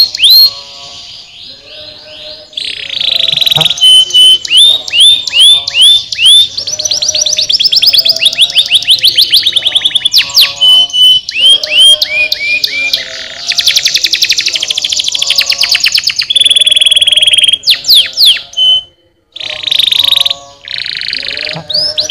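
Domestic canary singing a long, loud song of fast trills and repeated rising sweeps, switching from one rapid phrase to the next every second or two, with a brief break near the end.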